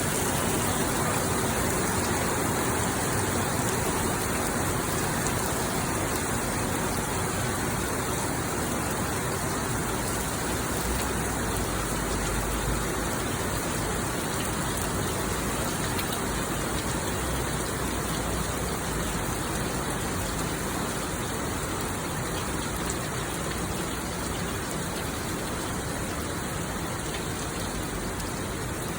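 Heavy monsoon rain, a steady dense downpour hissing on the surfaces around it.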